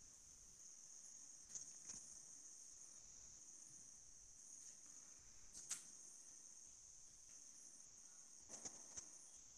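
Near silence on an open call microphone: a faint steady high-pitched whine, with a few faint clicks scattered through.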